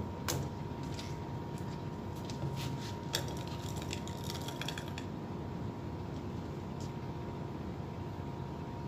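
Steady hum of a ship's machinery on deck, with a faint held tone. In the first five seconds a scatter of small clicks and clinks comes from fishing tackle being handled.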